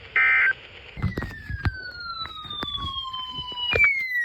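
A short shrill burst of data tones from the weather radio, typical of the end-of-message code that closes an alert. Then a siren whose pitch slides down slowly, jumps back up and slides down again, with scattered knocks under it.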